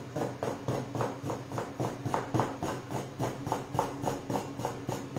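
Knife cutting a rope of gnocchi dough into pieces on a wooden pastry board: quick, even taps of the blade on the wood, about five a second.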